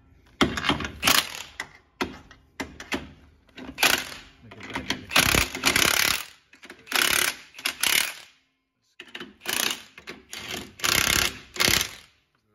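A ratchet and socket turning the nut on a sway-bar mount bracket clamped to the rear axle housing. It goes in about seven short bursts of rapid clicking, with brief pauses between them.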